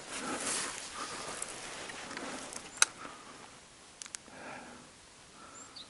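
Quiet movement on a sandy scrub trail: soft footsteps and rustling, with one sharp click about three seconds in and fainter clicks a second later.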